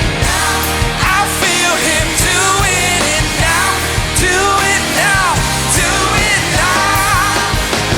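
Worship band music: sung vocals over steady bass and drums.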